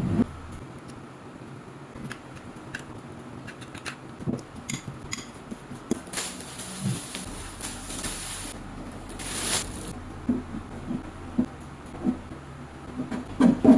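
Kitchen preparation sounds: utensils clinking and tapping against dishes and a work surface, with two short spells of hissing or rustling in the middle and a run of soft knocks near the end, over a low steady hum.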